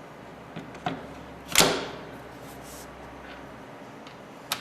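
H&K MP5 buttstock being fitted back onto the receiver: a few light clicks, then one sharp clack of the parts seating about one and a half seconds in, and another click near the end.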